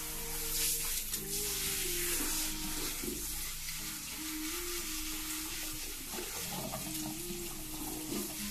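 Water spraying from a salon shampoo-basin sprayer onto long wet hair and draining into the basin, a steady hiss with hands working through the soaked hair. Soft music with a repeating melody plays underneath.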